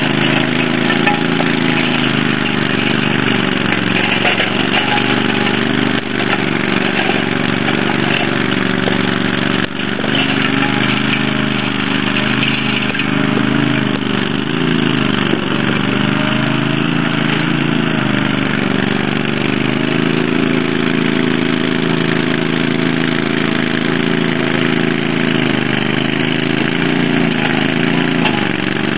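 Engine of a walk-behind power rake running steadily as the machine rakes loose soil, its pitch dipping slightly now and then under load.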